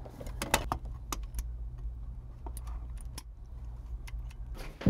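Caulk gun being worked to squeeze fireproof caulk into drilled holes: scattered light clicks and knocks from the gun and its handling, over a steady low hum, with a sharper knock right at the end.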